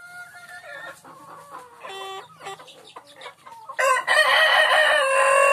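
A kampung chicken flock making a few short clucks and calls, then a rooster crows loudly about four seconds in, one long call of around two seconds.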